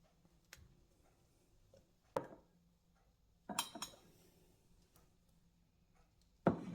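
Dishes and cutlery clinking in a few separate knocks: one about two seconds in, a short ringing clatter at about three and a half seconds, and another near the end.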